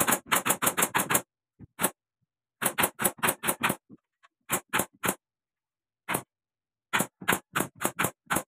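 Nail gun firing nails into wooden ceiling planks: sharp single shots in quick runs of several, about two dozen in all, with short pauses between runs.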